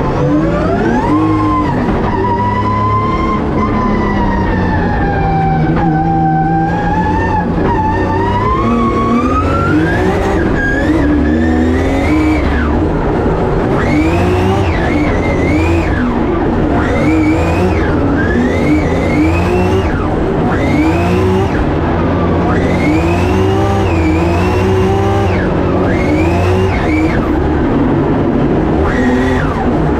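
Competition drift car's engine heard from inside the cockpit at full attack in a tandem run. The revs sag and climb slowly at first, then rise and drop sharply about once a second through the second half, as the throttle is worked to hold the car sideways, over the rush of sliding tyres.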